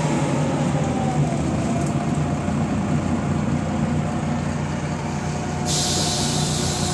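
Inside a MAZ-105 city bus under way: the diesel engine and drivetrain run steadily, with a whine that drops in pitch over the first second or two as the bus slows. Near the end a loud steady hiss starts suddenly.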